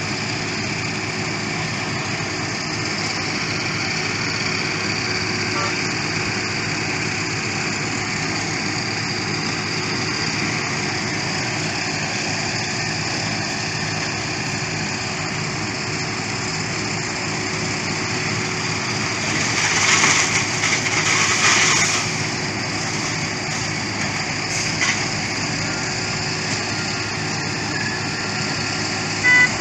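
Heavy construction machinery engine running steadily, with a louder rush of noise about two-thirds of the way through.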